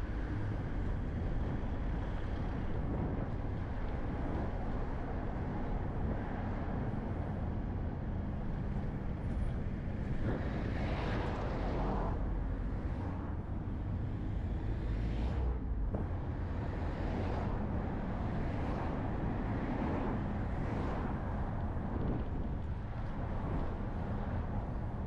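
Steady low rumble of a vehicle driving along an urban road, with other traffic swelling past about ten seconds in and a few times after.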